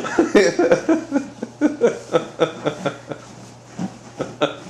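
Laughter: a quick run of short chuckles with brief gaps, trailing off after about three seconds, with a few more near the end.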